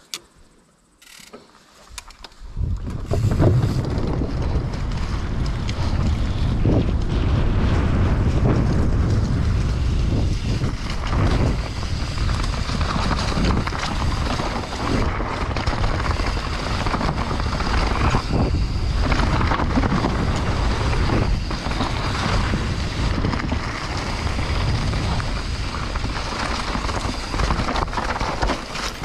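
YT Capra mountain bike descending a dirt downhill trail at speed: wind noise on the camera microphone over the rumble of knobby tyres, with frequent knocks and rattles from the bike over rough ground. It starts quietly with a few clicks, and the loud rush begins about two seconds in as the bike rolls off the ramp.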